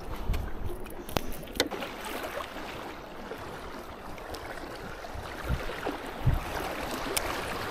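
Strong wind buffeting the microphone over sea water lapping, a steady rush of noise with low rumbling gusts. A few sharp clicks and two dull low thumps come through near the end.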